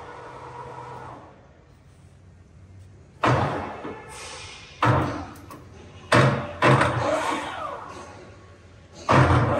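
Four sharp clunks, each dying away over about a second, as the headstock speed-change knobs of an IMA BL-1340 tool-room lathe are shifted to top speed. Near the end the lathe starts and its spindle runs steadily at 2000 rpm.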